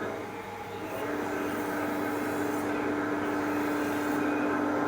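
A steady machine drone with a steady mid-low tone that comes in about a second in.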